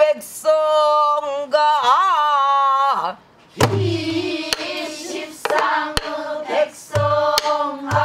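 A woman sings a long held, wavering line of Korean folk song in pansori style. After a short pause, a group of voices sings the next phrase while a buk barrel drum keeps time with low thumps and sharp stick clicks.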